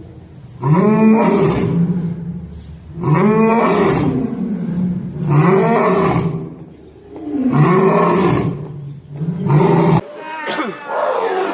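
A loud call that rises and falls in pitch, repeated five times about every two seconds. About ten seconds in, a cut brings a different, thinner-sounding call.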